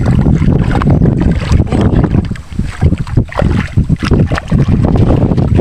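Water splashing and a net rustling as a large fish thrashes while being scooped into a hand landing net, with irregular sharp splashes over heavy rumbling handling and wind noise on the phone microphone.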